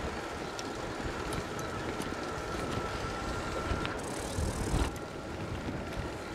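Bicycle riding along a path: tyre noise and wind rumble on the microphone, with scattered light clicks. A faint steady whine stops about four seconds in, followed by a brief hiss lasting under a second.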